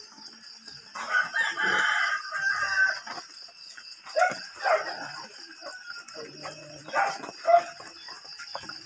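A rooster crowing: one long call of about two seconds, then several shorter calls later, the loudest near the end.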